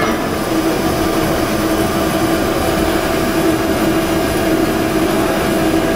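TENZ TP-B-20L mixer running at a steady speed: an even motor hum with a constant whine, and a brief click at the start.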